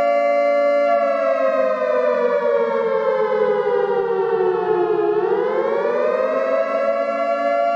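Civil defense warning siren sounding a steady, multi-note tone that slowly drops in pitch for about four seconds, then rises back to its full pitch and holds.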